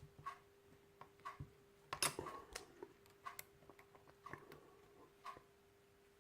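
Faint, scattered small clicks of a lock pick and tension wrench working the pins of a pin-tumbler lock, the loudest about two seconds in, over a faint steady hum.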